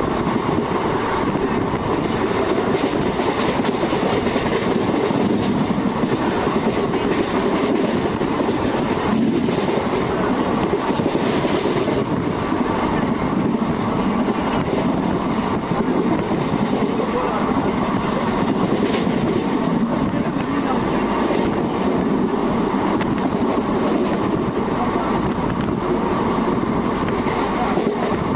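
A train running on the rails: a steady, unbroken noise with occasional faint clicks.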